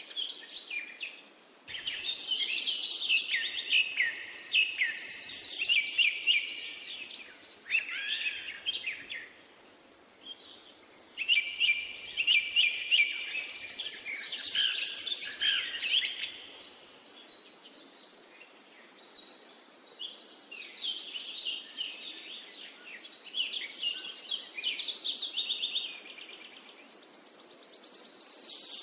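Songbirds singing: rapid, warbling, chirping phrases in bouts a few seconds long, with short pauses between.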